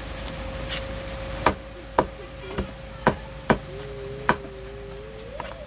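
Long kitchen knife chopping raw fish into chunks on a thick wooden chopping block: six sharp knocks of the blade striking the wood, at an uneven pace about half a second apart.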